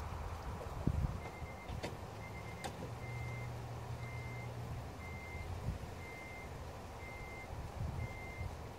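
Electronic warning beeper sounding a single high beep about once a second, each beep about half a second long, over a low steady rumble.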